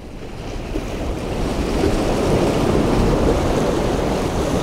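Ocean surf washing against the rocks of a jetty, swelling over the first couple of seconds and then holding steady, with some wind.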